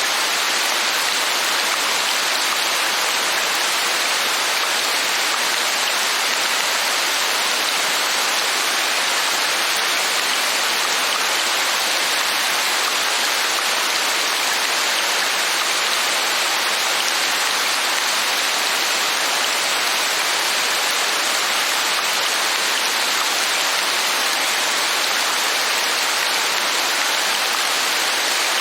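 Steady rainfall, a dense, even hiss of drops with no let-up.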